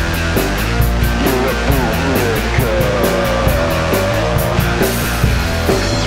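Punk rock song with electric guitar and drum kit, cymbals struck on a steady beat, and a wavering melodic line held for a couple of seconds in the middle.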